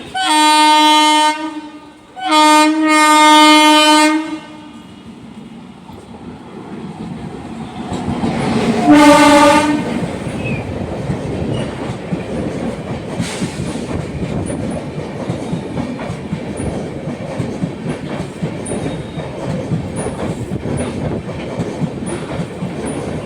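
Express train horn sounding two blasts close together, then a third shorter one about nine seconds in, as the train runs through the station at speed. From then on the train rushes past with steady loud wheel clatter on the rails.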